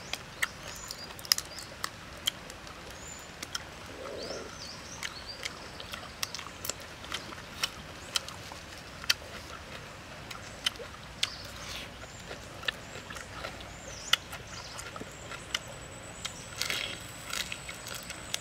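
Grilled prawns being peeled and eaten by hand: irregular sharp clicks and crackles of shell cracking and chewing, with a denser run of them near the end. Faint bird chirps sound behind.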